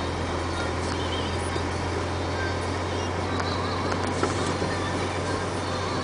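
Dump truck's diesel engine running steadily at low speed, heard from inside the cab as a constant low drone over road noise, with a few faint high chirps.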